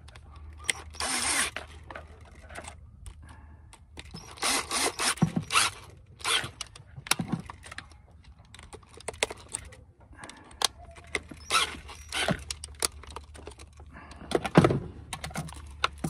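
Cordless drill running in short bursts, driving a bolt into a battery cable terminal end, with metallic clinks from the socket and terminal.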